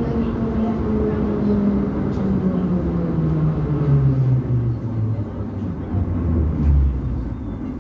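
Soviet-type 81-717 metro car's traction motors whining over the rumble of the running gear, the pitch falling steadily as the train slows along the platform and fading out near the end.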